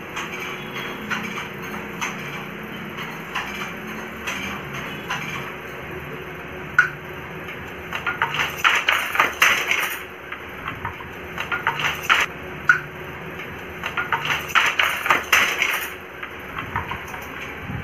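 Wooden handloom at work: scattered sharp clicks and knocks, then three bursts of rapid clatter as its parts are worked, over a faint steady hum.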